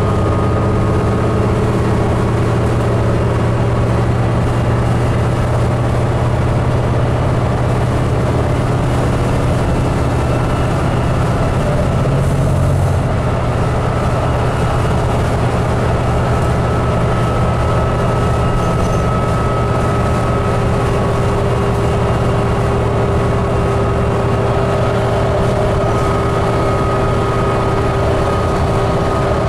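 Inside the cabin of a 2008 New Flyer D40LFR diesel city bus under way: a steady low engine drone with road noise and a faint whine, the engine note changing briefly about halfway through.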